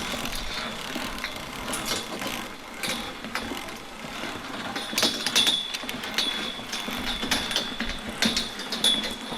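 Irregular clicks and knocks of footsteps and gear on a treetop walkway, with a thin steady high tone joining about halfway through.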